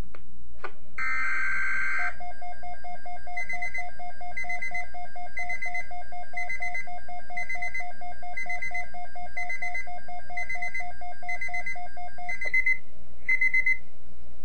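Emergency alert attention signal: a short buzzy burst about a second in, then a rapidly pulsing electronic tone, about four pulses a second, with higher beeps layered over it for about ten seconds, and a few last high beeps near the end. This is the alert signal that precedes the automated weather bulletin.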